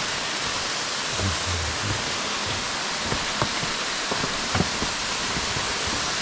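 Steady rush of a mountain waterfall, its flow thinned by a dry spell, with a few faint knocks.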